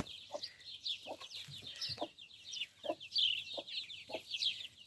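A broody hen clucking with short low notes roughly every half second, while her young chicks keep up a stream of high, falling peeps.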